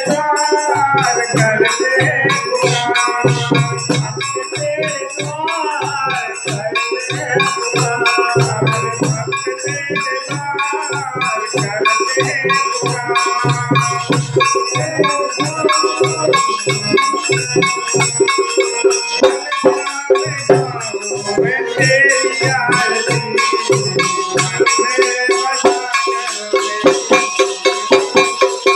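Live bhajan music: a dholak drum beats a steady rhythm, a harmonium sustains the chords, and kartal jingle-clappers keep up a bright rattle, with a man singing the melody over them.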